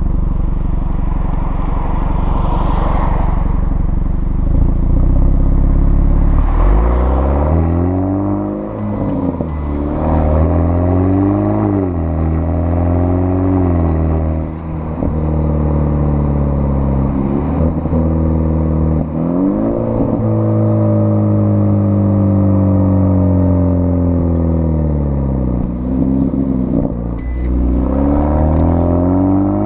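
Exhaust of a 2013 BMW F30 328i with the M Performance exhaust, heard at the tailpipes: its turbocharged four-cylinder runs with a low steady rumble, then from about six seconds in pulls through the gears, its pitch climbing and dropping back at each upshift. It then falls in pitch for several seconds as the car slows off throttle, and climbs again near the end.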